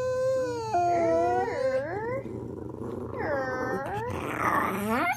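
Dogs howling together in long, wavering notes, with two howls overlapping at different pitches for a while and a rougher, growly howl near the end.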